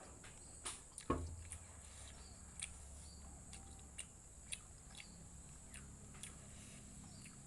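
Faint chewing and scattered small mouth clicks of someone eating instant noodles, with one louder knock about a second in.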